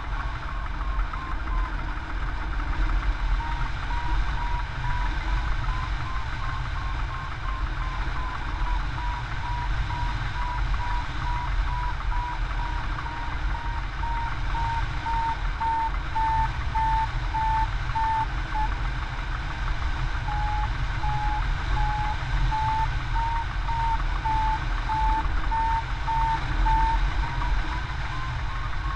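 Hang-glider variometer beeping steadily in short repeated pips. The pitch sinks slowly through the middle and climbs again near the end, signalling lift that weakens and then strengthens. Under it runs a steady rush of airflow over the wing-mounted camera.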